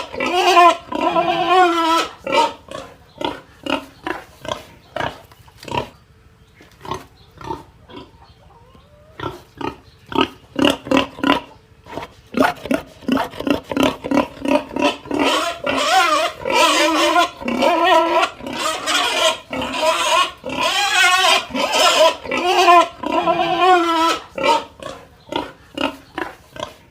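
Pig squealing and grunting in a rapid run of short calls, quieter and sparser for a few seconds about a quarter of the way in, then long wavering squeals again.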